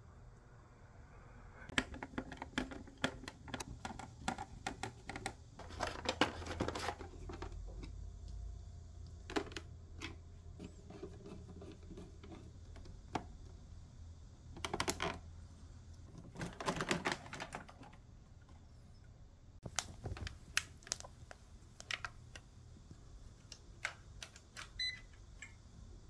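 Irregular light clicks, taps and rustles of hands handling the plastic base of an electric stand fan, with a faint low hum for a few seconds partway through.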